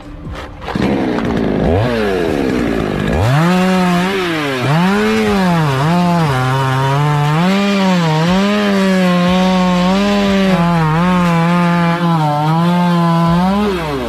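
Chainsaw revving up, then running at high throttle while cutting into a coconut palm trunk, its pitch dipping and recovering again and again as the chain loads in the wood. It stops abruptly near the end.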